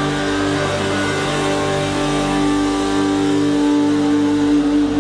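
Trumpet blowing long held notes over sustained worship music, one low note held for about three seconds and bending slightly just before it ends.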